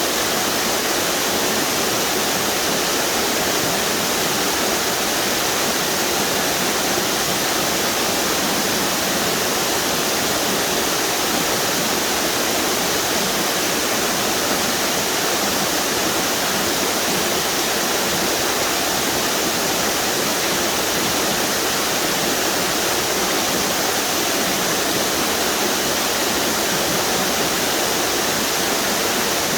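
Steady rush of water pouring over a string of river waterfalls: an even, unbroken roar of falling and churning water.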